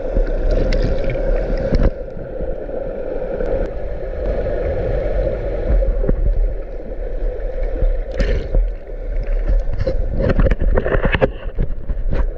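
Muffled rumbling and sloshing of water against a camera in the sea while snorkeling, with scattered knocks and clicks, a cluster of them near the end.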